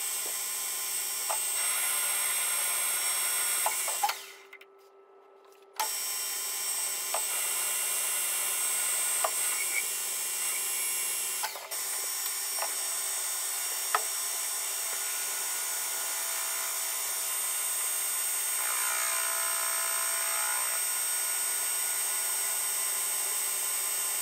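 Metal lathe running with a steady motor hum while a turning tool cuts, first an aluminium plug and then copper inserts, with occasional sharp ticks. The sound drops out briefly about four seconds in.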